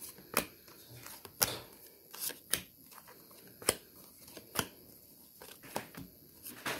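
Tarot deck being shuffled slowly by hand: cards slipping and tapping against each other in separate soft clicks, about one every half second to second, the sharpest about a second and a half in.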